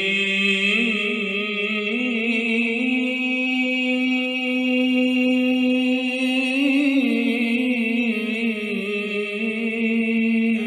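Intro music: chant-like vocal music, one voice holding long notes with vibrato and shifting pitch slightly a couple of times.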